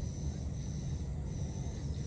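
Outdoor ambience: a steady low rumble with a thin, high insect trill that breaks off and resumes.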